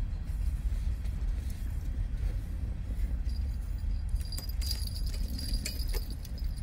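Train rolling past with a steady low rumble. About three seconds in, a high steady squeal joins it, with quick metallic clanking and rattling.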